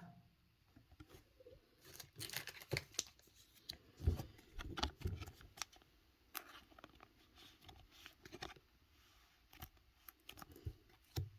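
Pokémon trading cards and foil booster-pack wrappers being handled on a table: irregular clicks, snaps and crinkling rustles in short clusters.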